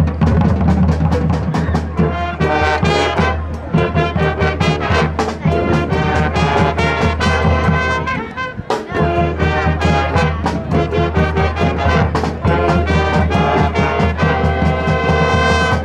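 Marching band playing, with brass chords and lines over a steady low bass and drum strikes. The music drops out briefly a little past halfway, then comes back in.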